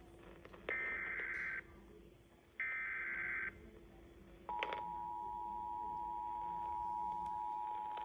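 Emergency Alert System broadcast over AM radio: two short buzzy bursts of SAME header data, about a second each, end the triple header that opens a tornado warning. About four and a half seconds in, after a click, the steady two-tone EAS attention signal starts and holds, heard through the radio's speaker.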